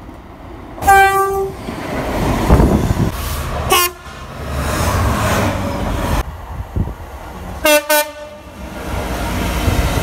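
Diesel freight locomotive's horn: a long blast about a second in, a short one near four seconds, and two quick blasts near eight seconds. Under it is the steady rumble and clatter of the container train passing.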